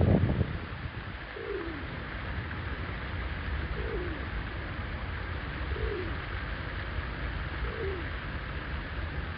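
A bird's low call, one note falling in pitch, repeated about every two seconds over a steady rush of fountain water. A brief low rumble sounds in the first half second.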